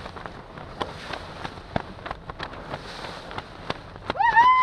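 Choppy river water slapping and splashing against a small boat's hull, irregular short knocks over a steady wash, with some wind on the microphone. Near the end a loud held tone starts, rising in pitch and then holding steady.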